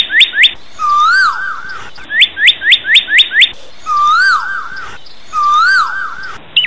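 A bird singing: runs of about six quick, sharply falling chirps, alternating with a lower whistled phrase that rises and falls.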